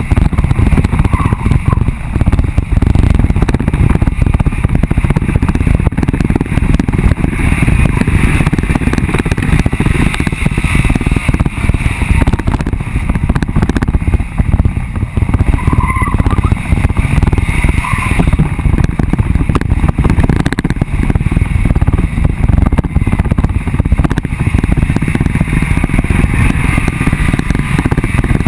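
Off-road vehicle driving fast over a rough dirt track: a loud, steady rumble of wind buffeting and jolting on a low-mounted camera, with little clear engine note.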